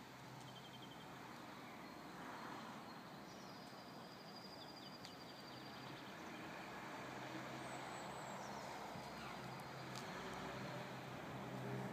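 Scania P360 truck's diesel engine running steadily, a faint low hum that grows a little louder towards the end.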